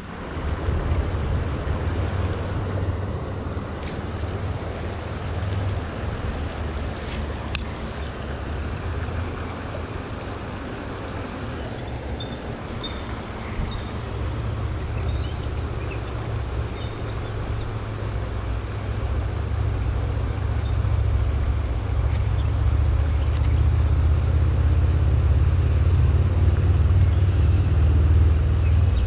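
Flowing creek water with wind buffeting the microphone as a steady low rumble, growing louder in the second half. One sharp click about seven seconds in.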